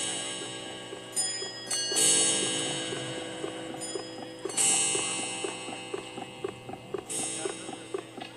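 Drum-kit cymbals struck several times, each ringing out and slowly fading, over a steady ticking pulse of about three beats a second.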